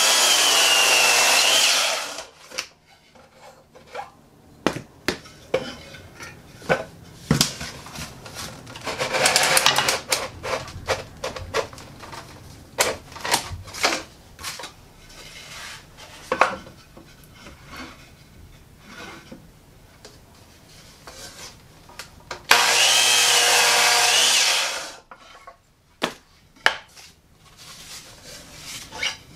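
Delta 36-040 8-1/4-inch compound miter saw cutting small pieces of wood: two loud runs of the motor and blade, each about two and a half seconds, one at the start and one about three quarters through. In between come knocks and clicks of wood pieces and the saw being handled.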